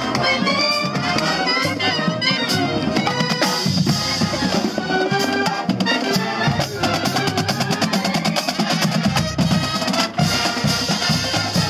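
Marching band playing on the march: trumpets and other brass, sousaphones among them, over snare drums and bass drums beating a steady rhythm.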